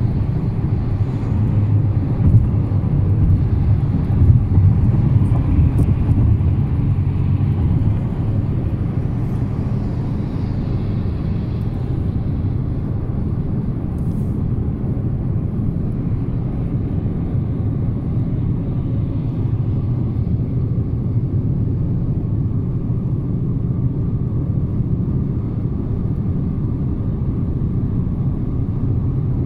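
Steady low rumble of a car driving along, a little louder in the first several seconds.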